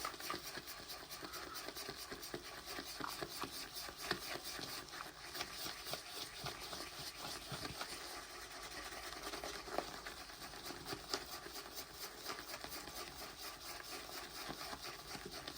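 Shaving brush whisking soap lather in a ridged 3D-printed bowl: a steady run of rapid, even wet swishing strokes.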